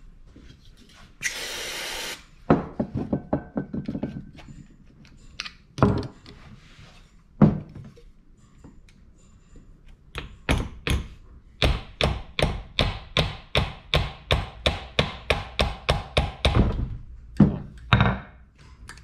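Hammer blows on metal, striking at the Loctite-secured bolts of a Deutz-Fahr Agrotron 100 front-axle hub to break them loose. There is a short burst of quick blows about two and a half seconds in, a couple of single knocks, then a steady run of ringing blows at about three to four a second for some six seconds, ending with two knocks. A hiss lasting about a second comes just before the first blows.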